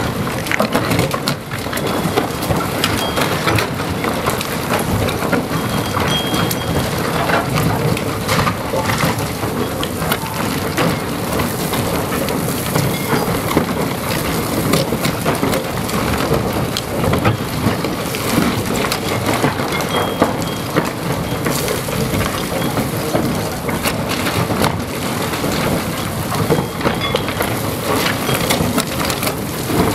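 Water jet spraying and spattering against the shotcrete tunnel face, a steady hiss with dense crackling, over the deep rumble of a Herrenknecht tunnel boring machine cutting through the rock behind the wall as it nears breakthrough.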